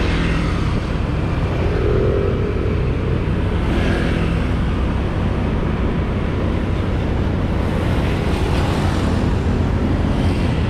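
Motorbike engine running steadily while riding in city traffic, with road and wind noise. Other motorbikes and cars pass close by, swelling up about four seconds in and again near eight seconds.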